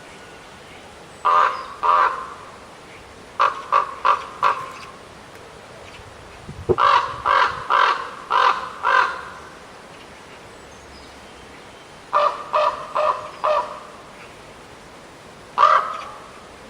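Raven calling in runs of short, harsh caws: two, then four, then five, then four, with a single caw near the end.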